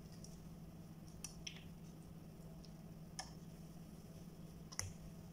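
Four faint, sharp clicks and taps from kitchen items being handled, spread a second or two apart, over a steady low hum.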